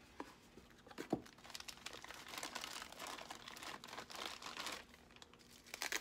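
New motorcycle rocker switches being unpacked: a cardboard box and plastic packaging being handled and opened, with irregular crinkling and rustling. There is a light knock about a second in and another near the end.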